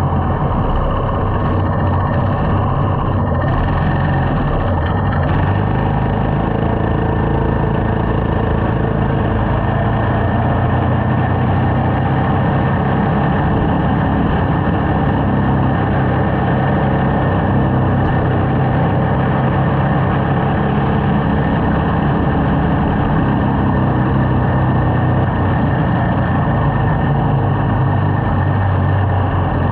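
Small motorcycle engine running steadily while the bike is ridden through traffic, with road noise.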